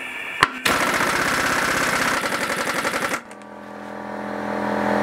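Air impact wrench hammering rapidly on the crank pulley bolt of a Honda J35 V6 for about two and a half seconds, without breaking the bolt loose. It then stops, and a small home air compressor's motor starts and runs steadily, growing louder.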